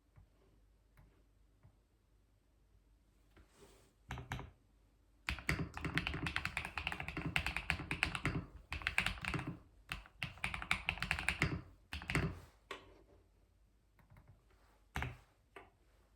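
Typing on a computer keyboard. There are a couple of keystrokes about four seconds in, then a fast run of typing for about seven seconds that stops abruptly. A few scattered keystrokes follow near the end.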